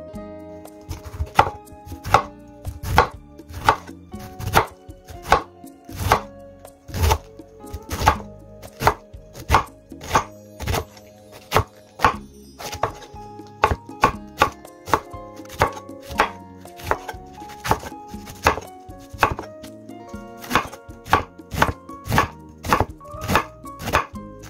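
Chef's knife shredding cabbage on a wooden cutting board: sharp chops against the board about two a second, with a short pause near the middle.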